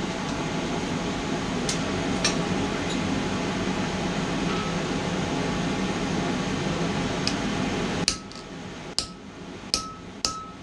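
A steady blowing hum, likely the forge's air blower, cuts off about eight seconds in; then come four or five sharp hammer blows on steel at the anvil, each with a short metallic ring.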